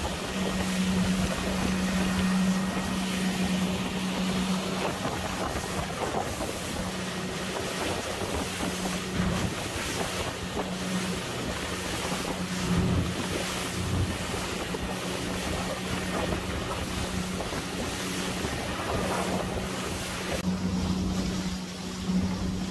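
Motorboat running at speed on open sea: a steady low engine drone under the rush of water along the hull and wind buffeting the microphone.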